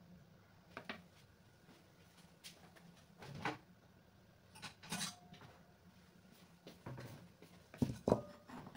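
Scattered knocks and clatter of kitchen things: a kitchen knife laid down on a wooden cutting board, then a ceramic plate brought to the board, with the loudest, a quick double knock, near the end.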